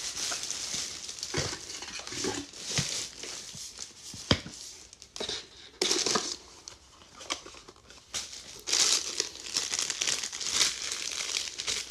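Plastic packaging crinkling as it is handled: the plastic wrap around a mini fridge and a plastic bag of power cords, in irregular rustles, with a sharp knock about four seconds in.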